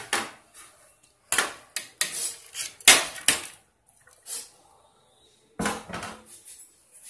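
Stainless-steel idiyappam steamer plates clanking against a serving plate as they are turned over and knocked to release the steamed string hoppers. It is a string of sharp metallic clanks in two bursts, the loudest about three seconds in.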